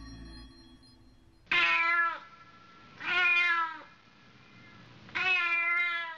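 A domestic cat meowing three times, each meow drawn out to just under a second, with pauses of a second or so between them.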